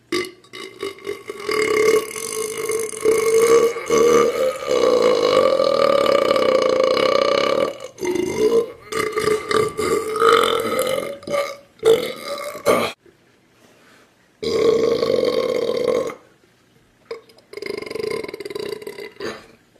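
A person belching: one long, drawn-out burp of about six seconds, then a run of shorter burps, and after a brief pause two more.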